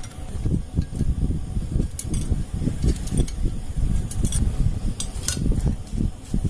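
Metal hand tools working on the cylinder head of a Bajaj Discover 100 engine as the head stud nuts are fitted: a continuous run of dull knocks and handling, with a few sharp metallic clinks.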